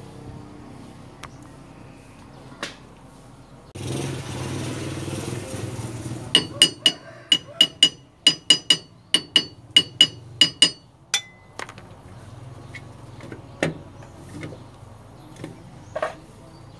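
A hammer taps the steel brake backing plate and axle hub of a Suzuki minivan's rear drum brake to seat them on the axle housing. It makes a quick run of about twenty metallic strikes, roughly four or five a second, each with a short ringing tone. Before the strikes comes a couple of seconds of steady rushing noise, and after them a few scattered knocks.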